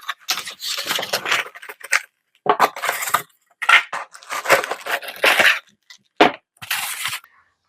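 Packaging and loose hardware being handled: irregular rustling and clattering bursts with short gaps between them.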